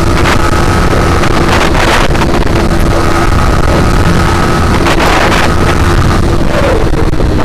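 Motorcycle engine running at steady revs while riding, with wind noise rushing over the microphone.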